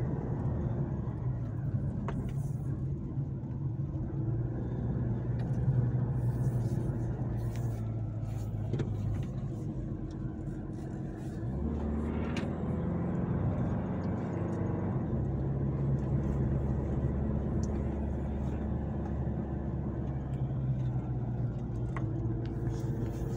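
Nissan Navara Calibre-X pickup driving, heard from inside the cabin: a steady engine hum with road noise. The engine note changes pitch a few times around the middle.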